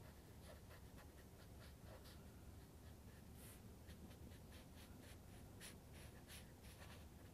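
Faint scratching of a marker pen on paper: a run of short, quick strokes, several a second, as heavy lines are drawn.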